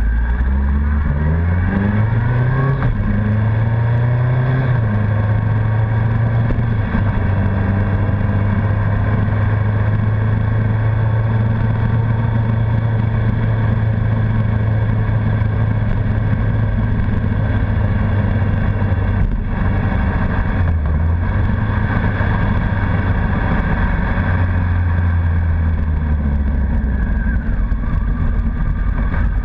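Honda CBR1100XX Blackbird's inline-four engine pulling away from a standstill, revs rising and dropping back with several quick upshifts in the first few seconds, then running steadily at cruising speed. The engine note eases off briefly twice a little past the middle and falls near the end as the bike slows.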